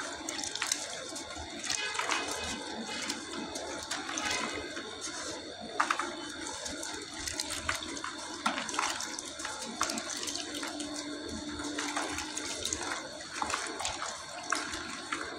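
Damp white sand being crumbled by hand into a plastic bucket, the clumps breaking with many small crackles as the grains pour and splash into the wet slurry below.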